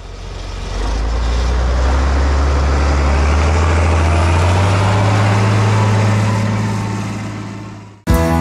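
International Harvester 3588 2+2 tractor's diesel engine running, its pitch rising a little about halfway through, then fading out near the end. Guitar music cuts in just before the end.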